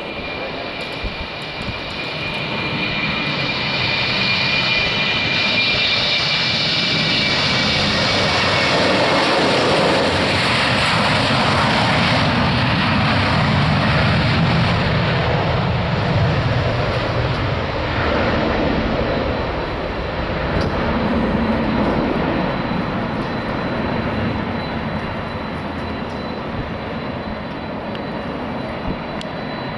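Airbus A318 airliner's jet engines under power as it passes by. A high fan whine early on falls slightly in pitch, then a broad rumble builds to a peak around the middle and slowly fades as the aircraft moves away.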